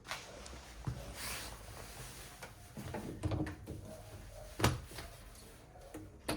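A few short knocks and clicks from something being handled, the loudest a little past the middle, with a brief hiss about a second in.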